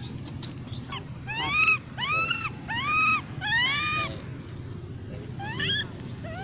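Infant long-tailed macaque crying for its mother: four loud squealing cries in quick succession, each rising then falling in pitch, then two fainter ones near the end, over a steady low hum.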